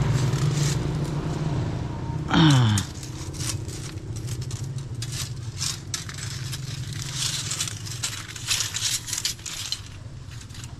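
Stainless steel banding strap being handled and pulled off its coil: a series of short metallic scrapes and clicks, over a steady low hum. About two seconds in, a brief loud cry glides down in pitch.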